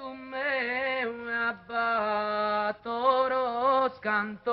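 Unaccompanied solo voice singing a slow melody in long, wavering held notes, with short breaks between phrases.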